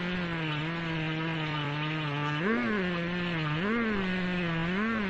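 Two-stroke chainsaw running at high revs while ripping a log lengthwise in a rail-guided chainsaw mill. Its pitch holds steady at first, then dips and recovers three times in the second half as the chain works through the cut.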